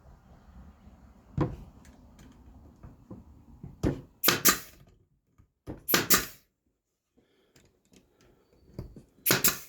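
Brad nailer firing brads into fence picket boards: about five or six sharp shots, some in quick pairs, with lower knocks of the boards being handled in between.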